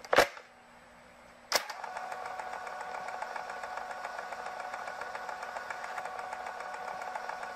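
Old film projector running: two sharp clicks, then from about a second and a half in a steady, fast mechanical clatter over a hum.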